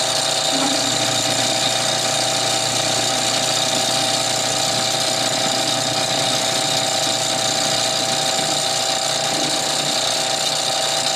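Metal lathe running steadily while its cutting tool faces off the end of a steel pipe, an even machining noise with a few steady tones in it.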